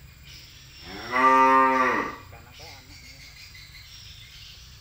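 A cow mooing once: one long call lasting just over a second, beginning about a second in, rising slightly in pitch at the start and dropping away at the end.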